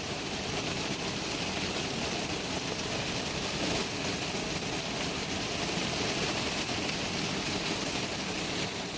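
Hailstorm: a dense, steady din of hailstones pelting down.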